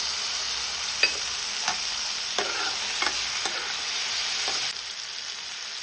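Onions and chopped tomato sizzling in hot oil in a steel kadai while a steel ladle stirs them, scraping and clinking against the pan several times. The sizzle drops a little near the end.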